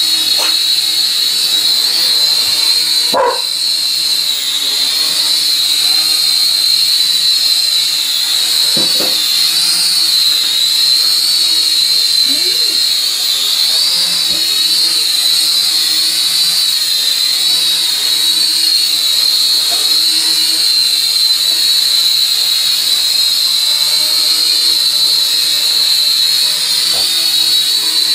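Syma X5C quadcopter hovering, its four small coreless motors and propellers making a steady high whine that wavers slightly in pitch. A dog barks a handful of times in short single barks, the first about three seconds in and the last near the end.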